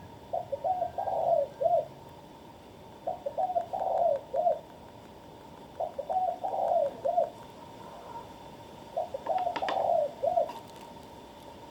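A dove cooing in the background: four repeated phrases of several short notes, one about every three seconds. A few faint clicks come near the end.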